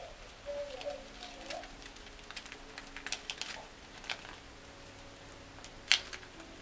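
Thin plastic shrink-wrap film crinkling as it is folded and pressed around a plastic game case, in a scatter of light clicks and crackles, with one sharper click about six seconds in.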